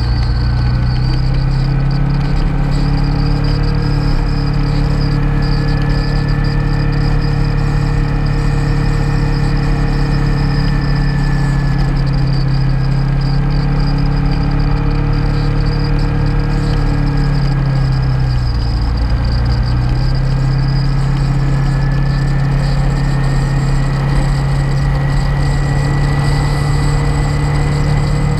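Motorcycle engine running at cruising speed on the highway, its note steady. About two-thirds of the way through it dips briefly, then climbs gradually as the bike speeds up again.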